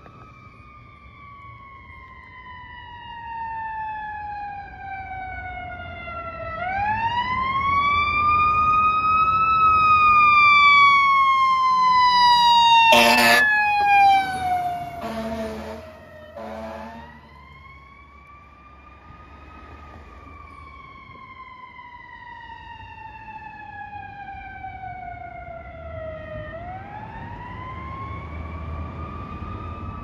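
Fire truck siren wailing, its pitch falling slowly and then sweeping back up about every ten seconds. It grows loud as the truck passes, with short horn blasts about halfway through, then fades as it moves away.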